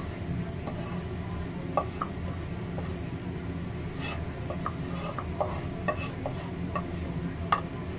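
Wooden pestle scraping and tapping crushed sweet corn off a round wooden board into a ceramic bowl: a scatter of short clicks and knocks over a steady low hum.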